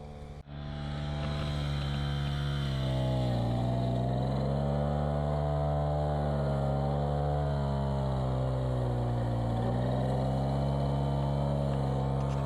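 Small petrol engine of a brush cutter running at high speed, its pitch slowly rising and falling as it works through weeds and grass. There is a brief break about half a second in.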